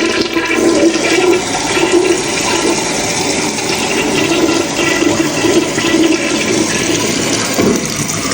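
Toilet flushing, a loud steady rush of water. This is the test flush of a freshly repaired tank, and it works.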